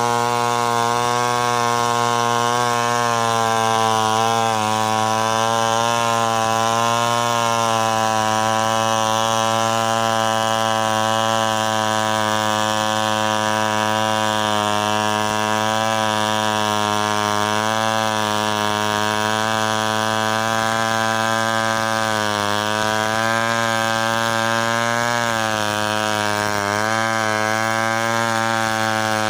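Stihl two-stroke chainsaw running at steady high revs under load as it rips lengthwise through a coconut palm trunk, its pitch dipping briefly a few times as the bar bites harder.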